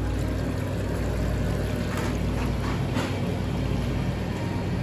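Steady mechanical hum and rushing noise of a supermarket's seafood section, with a couple of faint clicks about two and three seconds in.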